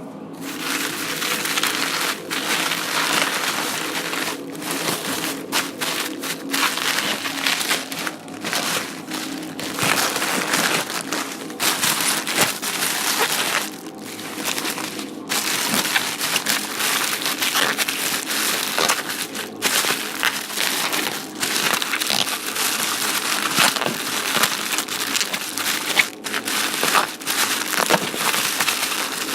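Plastic being crumpled and squeezed by hand: a long run of crinkling and crackling, broken by short pauses and sharper cracks.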